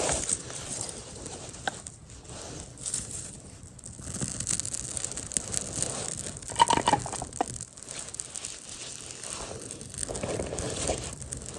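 A small campfire being lit: dry tinder and twigs crackle and rustle irregularly as they are handled and catch.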